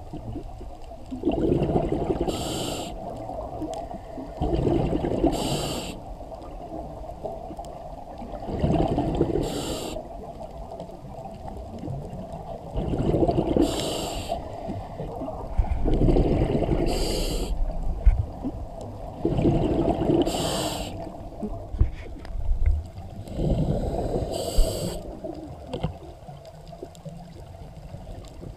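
Scuba diver breathing through a regulator underwater. Each breath is a short hiss on the inhale, then a longer rumbling gurgle of exhaled bubbles, repeating about every four seconds.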